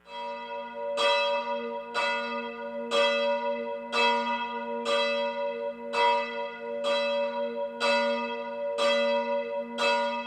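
A single large bell tolling, struck about once a second, each strike ringing on into the next.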